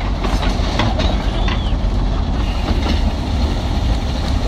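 Garbage truck's diesel engine running at idle, a steady low rumble close by.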